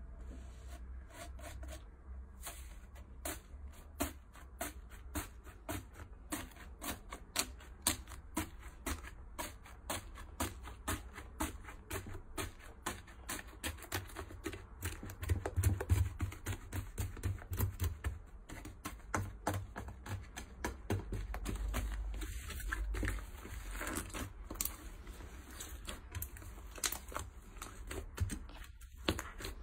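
Hands pressing and squishing grey slime packed with small white foam beads (floam): a dense run of crisp crackles and pops, several a second, as the beads and trapped air are squeezed.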